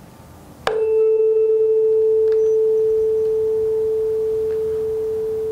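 A tuning fork on a wooden resonance box is struck once with a mallet, less than a second in. It then rings with a steady pure tone that fades slowly.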